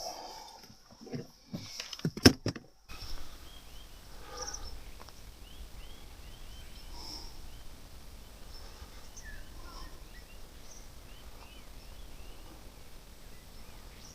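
A few sharp knocks in the first three seconds, then a steady low rumble with many small birds chirping in short rapid calls.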